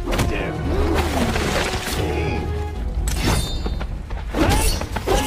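Action-film soundtrack: music over a steady low drone, with a sharp crash and a brief ringing tail about three seconds in and another hard hit about a second and a half later.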